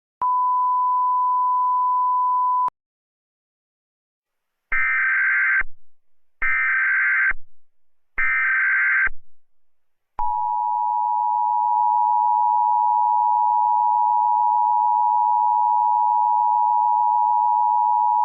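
Emergency Alert System tones. A steady single beep lasts about two and a half seconds. After a pause come three short, identical bursts of buzzy SAME header data, each about a second long. Then the steady two-tone EAS attention signal starts and holds for about eight seconds.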